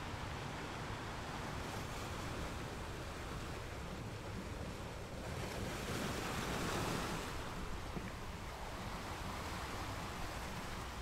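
Steady rushing outdoor noise with no clear tones, swelling louder for about two seconds around the middle.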